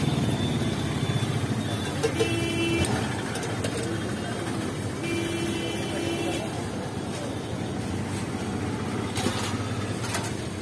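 Street traffic rumbling steadily, with a vehicle horn honking twice: briefly about two seconds in, then for over a second about five seconds in. A short clatter comes about nine seconds in.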